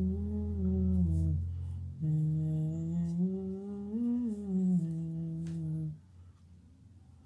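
A person humming a tune in long, gliding notes, with a short break about one and a half seconds in; the humming stops about six seconds in.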